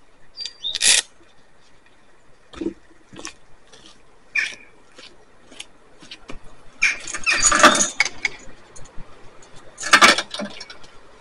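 Irregular knocks, clanks and scraping from a loaded push sled being worked, with a couple of short squeaks; the loudest are a scrape lasting just over a second about seven seconds in and a loud burst about ten seconds in.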